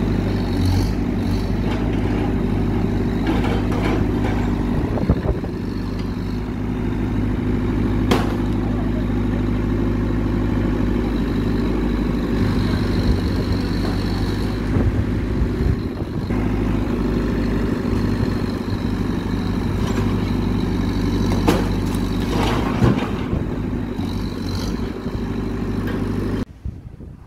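Backhoe loader's diesel engine running steadily as its arm works on a fallen tree, with a few sharp knocks.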